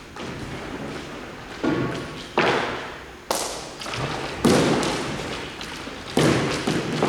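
A series of five hard thumps at uneven intervals of about one to two seconds, each striking sharply and ringing out briefly.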